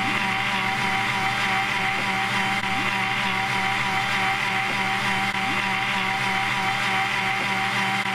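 Electric mixer grinder running steadily at speed, grinding sesame seeds with water into sesame milk in its stainless steel jar: an even motor tone over a rushing whirr.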